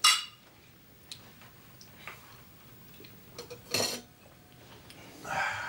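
Tableware clinking at a dinner table: a sharp clink of glass or cutlery at the start, a couple of faint taps, and another bright, ringing clink just before four seconds in, with a short soft noise near the end.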